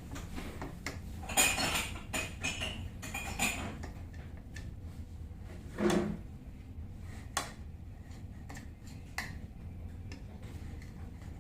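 Kitchen utensils and dishes clinking and clattering: scattered sharp clicks and knocks, with a duller, deeper knock about six seconds in.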